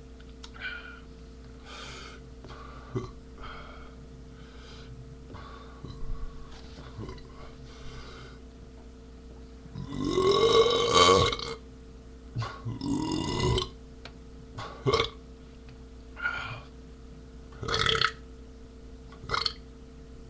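A man burping over and over: a string of short burps, then a long, loud one about halfway through, closely followed by a second long burp, then more short ones.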